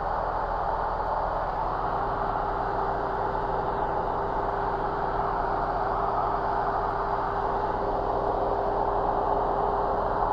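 Light aircraft's engine and propeller droning steadily in cruise, heard inside the cockpit, with a constant mid-pitched hum.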